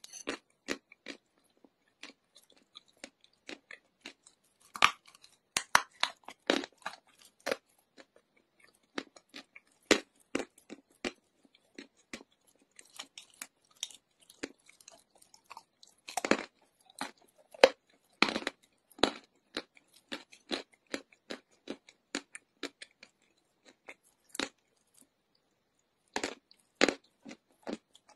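Chunks of chalk bitten and chewed close to the microphone: sharp, crisp crunches coming in irregular clusters with short pauses between bites.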